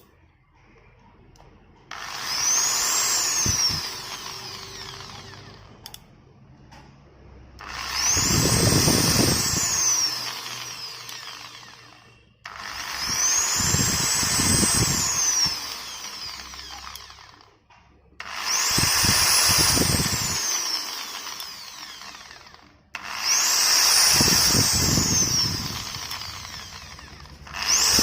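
iBELL ED10-30 500 W electric drill run in five bursts, each a couple of seconds long. In each burst the motor whine rises in pitch as it spins up, then falls and fades as it coasts down.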